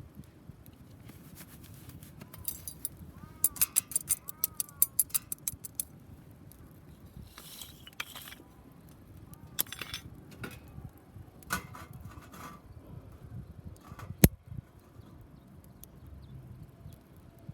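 Firewood burning in a homemade tower-type fire pit, crackling with a quick run of sharp pops a few seconds in and one loud pop late on.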